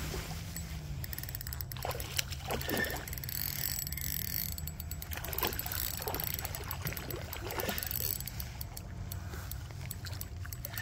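A hooked fish splashing at the water's surface close to the bank, in short irregular splashes.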